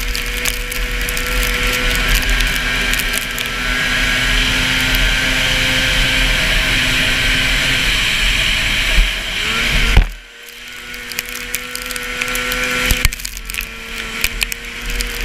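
A 440 cc two-stroke racing snowmobile engine running at high, steady revs, heard from on board the sled. About ten seconds in the throttle is cut sharply and the engine drops away, then builds again, with another brief lift a few seconds later.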